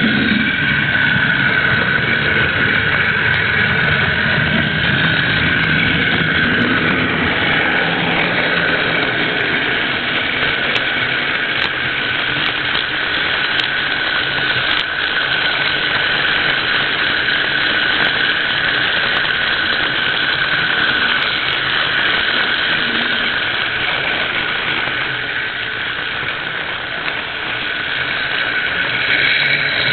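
Model train running along its track, picked up by a camera riding on the train: a steady whirring hum of motor and wheels with a high whine over it and a few faint clicks.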